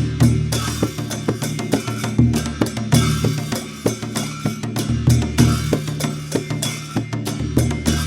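Dhime, the Newar double-headed barrel drum, played in a fast, driving rhythm: rapid sharp strokes over a deep, ringing bass boom, with a bright shimmering layer above.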